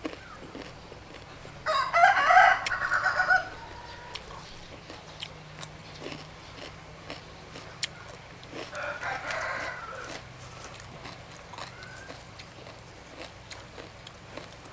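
A rooster crowing twice: a loud crow about two seconds in, then a fainter one about halfway through.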